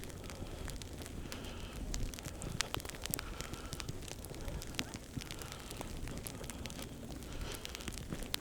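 Sleet pellets ticking and crackling as they hit: a rapid, irregular patter of small sharp clicks over a steady hiss.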